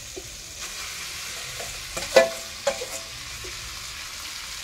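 Masala sizzling steadily in a hot kadai while a metal ladle scrapes boiled potatoes out of a steel bowl, clinking against it a few times. The sharpest clink comes about two seconds in.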